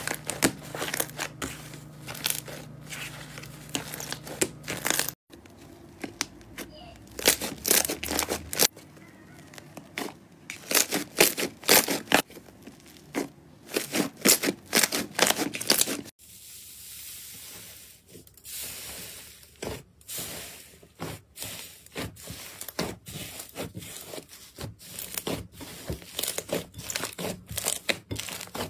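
Hands squeezing, kneading and pressing slime, making dense runs of crackling, popping clicks. The sound changes abruptly twice as one batch of slime gives way to another.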